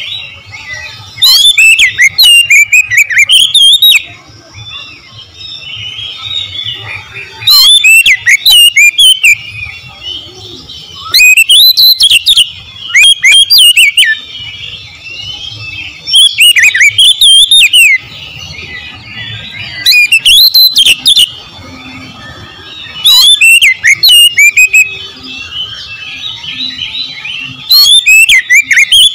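Oriental magpie-robin (kacer) singing loudly: about seven rich whistled phrases of quick up-and-down sweeps, each a second or two long, come every few seconds.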